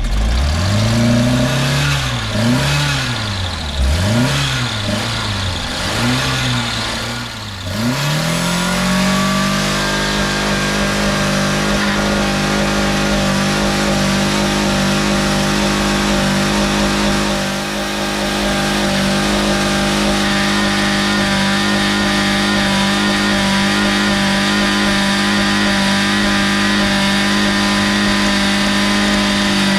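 Car engine revved up and down about four times, then climbing to high revs and held there steadily with the gas pedal pinned down, run flat out to blow the engine.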